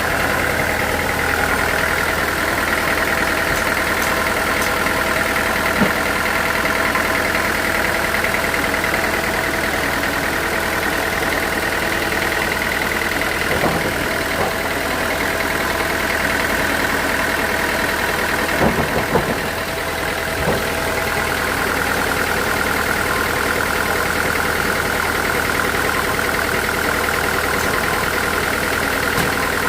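Sawmill machinery running steadily with a constant hum and whine, broken by a few short knocks about a third of the way in and again around two thirds of the way in.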